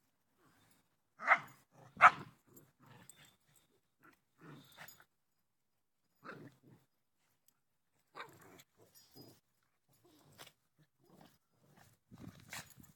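Two dogs play-fighting: two sharp barks a little over a second in and about two seconds in, then scattered quieter growls and scuffles, with a busier flurry near the end.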